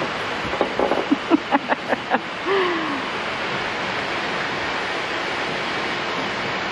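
Steady rush of turbulent water in a filling canal lock chamber. A few brief words are spoken in the first two seconds.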